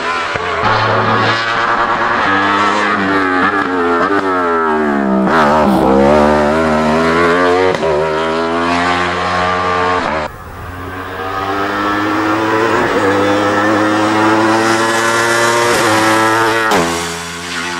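Wolf Thunder sport prototype race car's high-revving engine accelerating hard, its pitch climbing and dropping back at each gear change. About five seconds in the pitch falls steeply and then climbs again.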